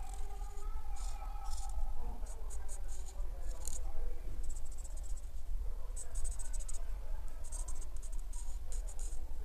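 Art marker tip rubbing over paper while colouring: short scratchy swishes in clusters, some in quick runs of back-and-forth strokes.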